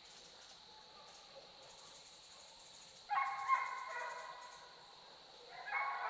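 Deer hounds baying on a deer's trail, in two bouts of drawn-out calls: the first about three seconds in, the second near the end.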